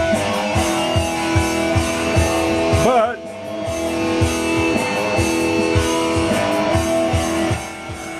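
Rock music with electric guitar and a steady beat of about two a second, played through the working channel of a TDA7293 chip-amplifier kit into a speaker, with the supply rails at about 30 volts.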